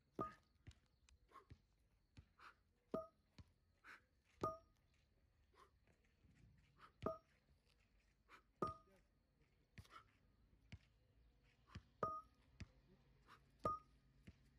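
Metal dumbbells knocking down onto asphalt again and again as they are rowed up and set back down. There are about a dozen sharp knocks at uneven spacing, and the loudest have a short metallic ring.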